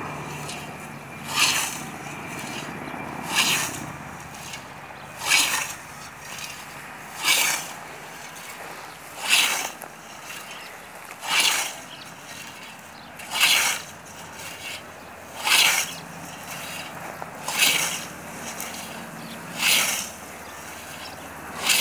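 Hand scythe swishing through long grass, one sweeping cut about every two seconds in a steady mowing rhythm.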